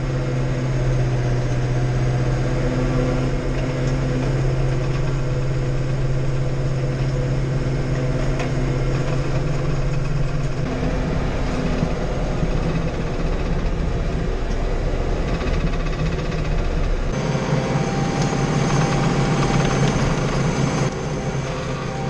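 John Deere 5085M tractor's four-cylinder diesel engine running steadily, heard from inside the cab. About three-quarters of the way through, the drone turns brighter and noisier.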